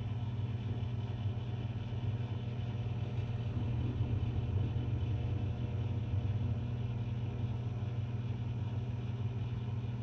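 Microwave oven running with a steady low hum, getting slightly louder around the middle.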